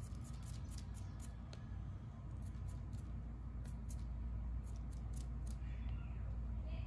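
Small dig-kit shovel scraping and picking at a plastic dinosaur figure, a string of faint irregular clicks and scratches, over a low steady hum.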